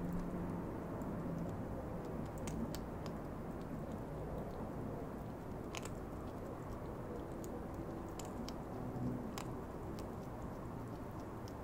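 European hedgehog eating dry kibble close up: irregular, crisp crunches and clicks as it bites and chews the pieces.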